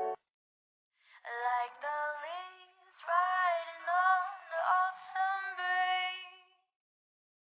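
Music: a short sung vocal phrase of several gliding held notes that starts about a second in and breaks off shortly before the end, after a brief blip at the very start.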